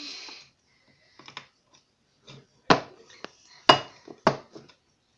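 A few sharp knocks and clinks of hard objects being handled on a kitchen counter, the three loudest coming about a second apart in the second half, with fainter taps between.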